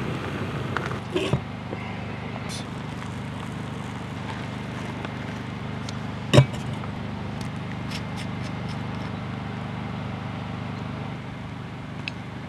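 Jetboil canister stove burner running steadily, with one sharp clink of the metal cup about six seconds in; the burner sound eases a little near the end.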